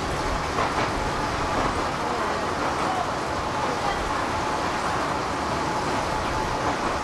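Open-top rail cart running on the track through a tunnel: a steady rumble and rattle of wheels on rails that gets louder right at the start as it enters the tunnel, then echoes off the tunnel walls.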